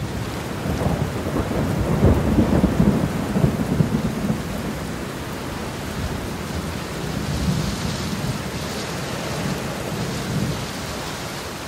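Steady rain with low rolling thunder, swelling twice. It sounds like a thunderstorm sound effect laid in as an editing transition, cut off abruptly at both ends.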